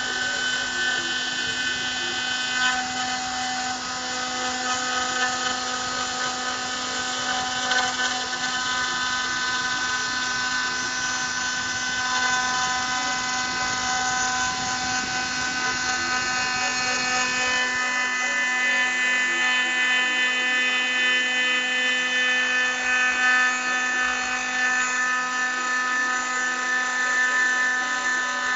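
CNC spindle whining steadily while an engraving bit cuts lettering into an aluminium plate, with a hiss of cutting under the whine; the low rumble drops away about two-thirds of the way through.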